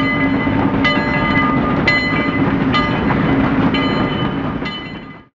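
Train running on rails, a steady hum with a sharp, ringing clack about once a second; it fades out and stops near the end.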